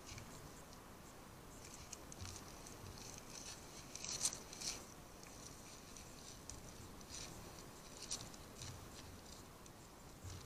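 Digging a target out of wet ground: soft, irregular scrapes and crumbling of soil, the loudest cluster about four seconds in.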